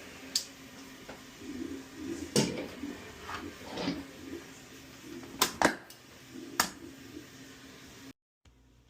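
A few sharp clicks and knocks of hard objects being handled, scattered a second or more apart, with the loudest near the middle.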